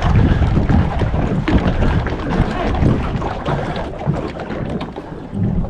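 Wind buffeting the microphone in gusts, with scattered light knocks.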